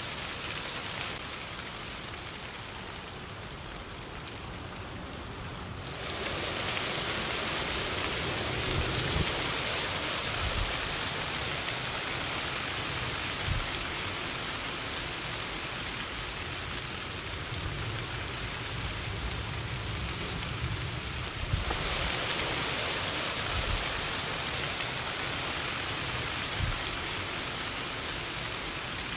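Leaves rustling as a steady, noisy hiss. It turns abruptly louder about six seconds in and changes abruptly again about two-thirds of the way through.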